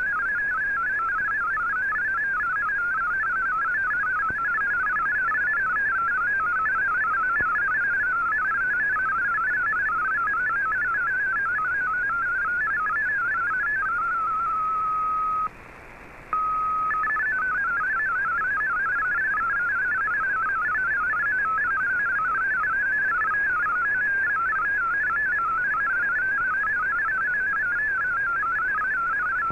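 MFSK32 digital data signal from a shortwave broadcast, heard through a communications receiver: a rapid warble of many short hopping tones in a narrow band, over a faint layer of receiver hiss. About halfway through the warble settles into one steady tone, drops out for under a second, then the data tones resume.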